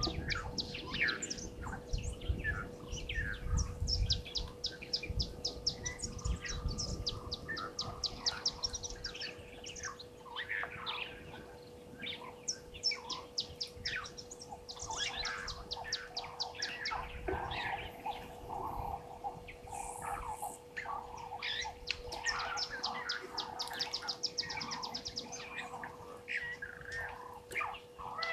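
Many wild birds calling at once, short chirps mixed with fast chattering trills, over a steady faint hum. Low rumbling noise is also heard through the first several seconds.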